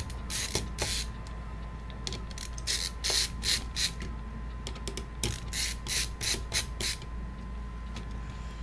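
Hand tools working on a laptop's CPU heatsink: short scratchy, rasping strokes in three bursts, several a second, over a faint steady hum.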